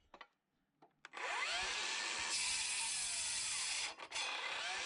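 A few light clicks, then a cordless circular saw starts up about a second in and cuts through a wooden board, its motor pitch rising as it spins up. The saw cuts out briefly near the end and starts again.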